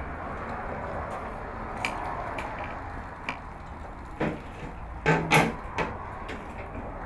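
Scattered clanks and knocks of hard objects being handled, over a steady hiss; a loud pair comes about five seconds in.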